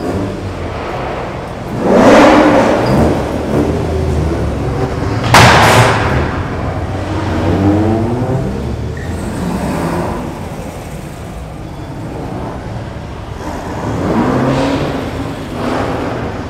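Several car engines revving and accelerating away one after another inside a concrete parking garage, with a loud rev about two seconds in, the loudest burst about five seconds in, rising revs around eight seconds, and another rev near the end.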